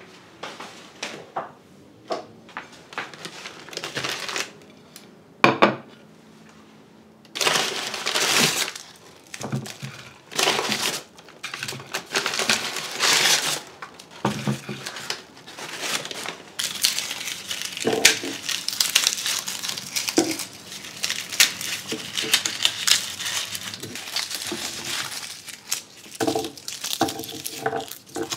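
Whole garlic bulbs being broken apart into cloves by hand, the dry papery skins crackling and crinkling, nearly without pause in the second half. Before that come a few scattered knocks of kitchenware.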